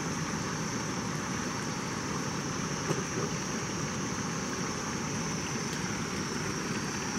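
Steady rushing of water from a rain-swollen creek or spillway, an even unbroken noise, with a thin steady high-pitched tone over it.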